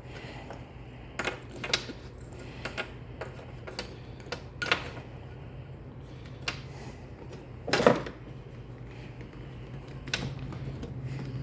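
Irregular clicks and taps of the chainsaw's recoil starter parts being handled as the starter pulley is wound to tension the recoil spring, with one louder knock about eight seconds in. A steady low hum runs underneath.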